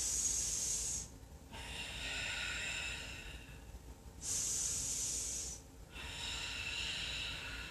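A woman breathing deeply and audibly through a held yoga pose: two full breaths, each a short, sharp hissing breath of about a second followed by a longer, softer one.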